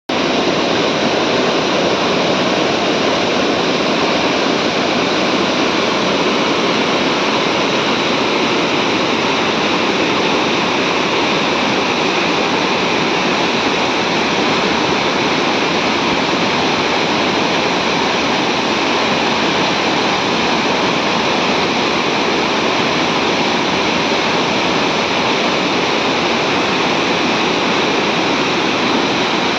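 Waterfall: water falling and splashing down in a loud, steady, unbroken rush.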